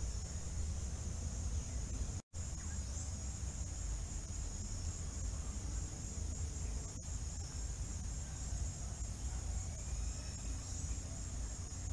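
Steady high-pitched chorus of insects with faint bird chirps, over a low rumble. The sound drops out for a split second about two seconds in.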